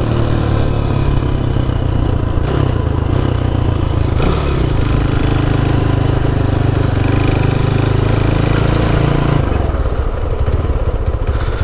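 Honda C90's small single-cylinder four-stroke engine running while the bike is ridden, steady for most of the stretch, with a change in engine note about four seconds in and the engine easing off near the end.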